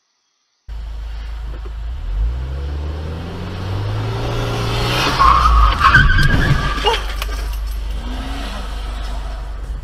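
After a brief silence, a car's steady rumble as heard inside the cabin starts, and its engine note rises. About five seconds in, tyres squeal loudly, and a few sharp knocks follow between about six and seven seconds.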